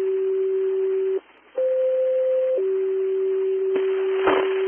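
Fire dispatch alert tones over a scanner radio: a steady low tone, a short break about a second in, a higher tone for about a second, then the low tone again. The tones announce a new dispatch, and radio voice briefly breaks in under the tone near the end.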